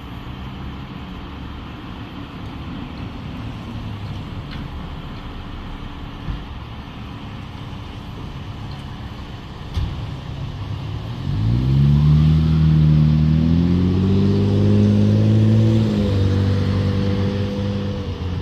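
Fire engine's diesel engine running at idle, then about eleven seconds in it revs up and pulls away. Its pitch climbs in steps as the automatic transmission shifts up, then holds steady near the end.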